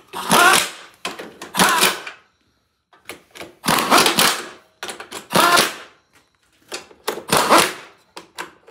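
Pneumatic impact wrench run in about six short bursts, each under a second, hammering as it spins nuts down onto the bumper's bolts.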